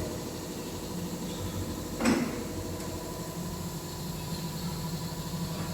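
A steady mechanical hum, with a single short clunk or slide about two seconds in.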